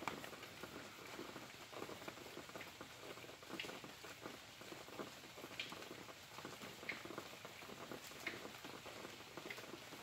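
Rain falling at night, a quiet steady patter of drops with a few sharper single drips standing out every second or two.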